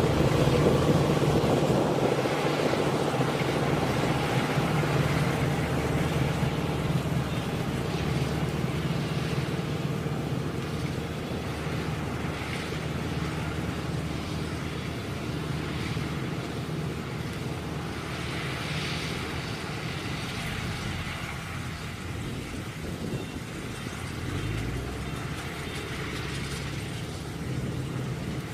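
Kubota DC-105X combine harvester's engine running at a steady pitch, slowly growing fainter.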